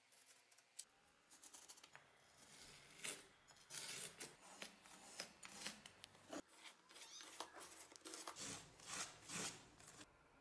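Faint, scratchy hand-tool strokes, several a second: a blade cutting and scraping sheet material on a wooden workbench.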